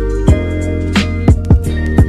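Background music: sustained chords and a bass line over a drum beat with kick and snare hits.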